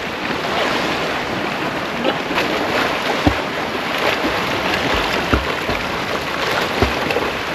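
Steady rush of sea water and wind, with a few short low thumps of wind buffeting the microphone.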